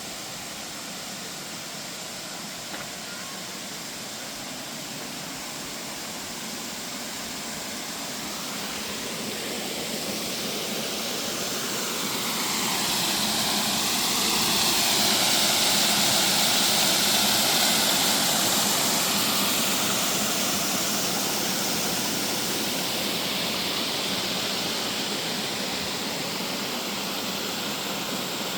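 Aircraft passing overhead: a rushing engine noise that swells for several seconds to a peak about halfway through, then slowly fades, its tone sweeping as it passes.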